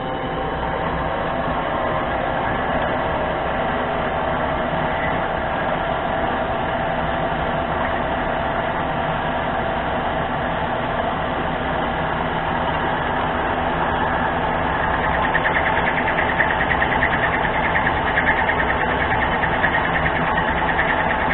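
Mini lathe running under power while an insert tool takes a cut: a steady motor and gear whine. About fifteen seconds in, a rougher, rattling edge comes in. The machinist is unhappy with how the cut with this insert sounds and feels.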